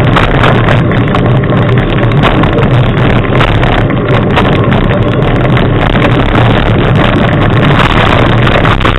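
Loud, steady wind rumble on the microphone of a fast-moving camera, over a constant low drone of travel noise.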